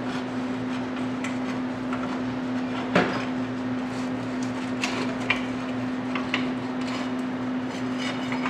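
Pry bar working a brake caliper off its rotor: scattered metal clanks and scrapes, the sharpest about three seconds in, over a steady low hum.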